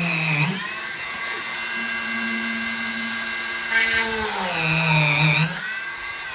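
Dremel rotary tool with a small drill bit running at high speed, drilling pilot holes into very hard wood for screw-in hooks. A steady high whine whose pitch sags twice, near the start and again about five seconds in, then recovers.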